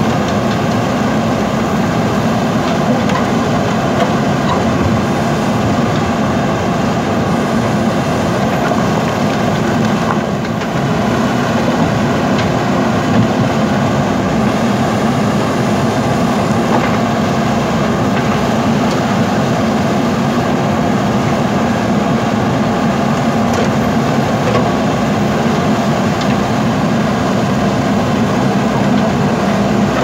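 JCB backhoe loaders' diesel engines running steadily while the backhoe arm digs soil and rock, with a brief dip in level about ten seconds in.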